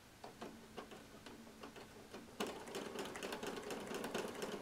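Home sewing machine doing free-motion embroidery stitching. It starts with a few slow, separate stitch clicks, then about two and a half seconds in it speeds up into rapid, steady stitching with a motor hum.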